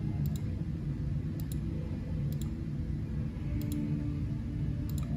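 Computer mouse clicking five times, about a second apart, each click a quick press-and-release pair, over a low steady hum.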